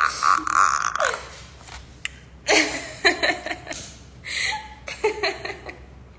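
A woman's voice imitating the clicking, rasping growl of a Last of Us 'clicker' zombie: a harsh rasp that drops away about a second in. She then breaks into several bursts of laughter.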